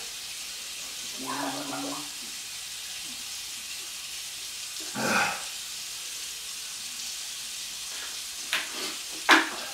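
Steady background hiss. Over it come a brief moan about a second in, a breathy rush of air around five seconds, and a few sharp clicks and knocks near the end.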